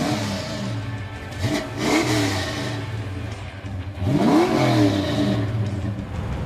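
V8 engine of a 1972 Chevy El Camino SS, exhausting through Flowmaster 70 Series Delta Flow mufflers, revved in short throttle blips from idle. One blip falls away just at the start, a second comes about two seconds in, and the biggest comes about four seconds in, after which the engine settles back to a steady idle.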